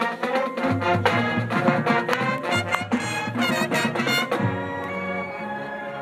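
High school marching band playing its field show: brass and percussion with a quick rhythmic passage, settling into held brass chords about four and a half seconds in.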